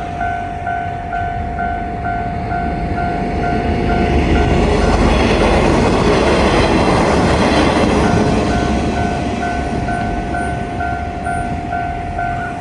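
Japanese level-crossing electronic alarm bell ringing in a steady rapid 'kan-kan' rhythm, about three strokes a second. A train passes through the crossing in the middle, its wheels and running noise rising to cover the bell for a few seconds before the bell is heard again.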